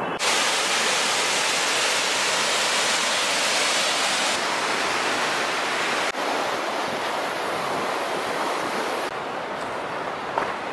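Steady rushing of fast-flowing water, a loud even hiss without rhythm. It shifts abruptly in level a few times.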